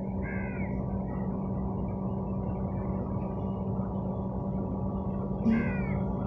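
A steady low hum over background noise, with two short falling bird calls, one about half a second in and one near the end.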